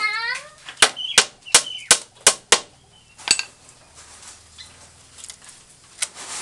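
Small hammer tapping on a rattan lashing wrapped around a bamboo pole: about seven sharp knocks, roughly three a second, in the first three and a half seconds, then only faint handling noise.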